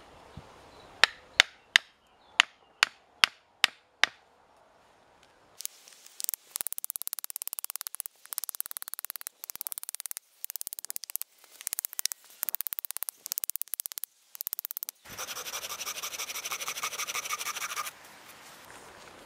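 Hatchet knocking on green wooden poles while a pole bench is put together: eight sharp knocks, roughly two or three a second. Then a long run of short rasping, scraping bursts, and near the end about three seconds of steady hiss.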